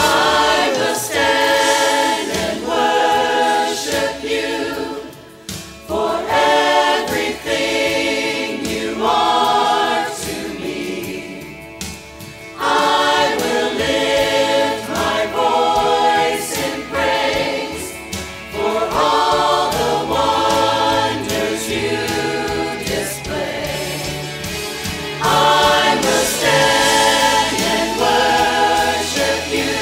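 Church choir singing a worship song in full voice with instrumental accompaniment, phrase by phrase, with brief lulls between phrases.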